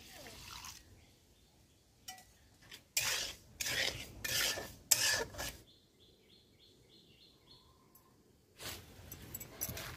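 A metal spatula scraping and stirring in a steel pan of sugar and water, in several loud strokes about three to five seconds in. Before that comes a faint pour of water into the pan.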